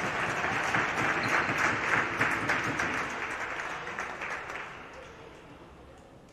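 Applause, dense clapping that fades away over the last two seconds.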